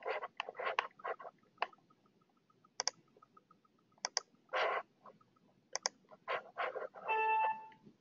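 Computer mouse clicking as dialog options are picked, several clicks in quick pairs, with a few short scuffing noises in between. Near the start comes a faint run of soft, even ticks, and about seven seconds in a brief pitched sound.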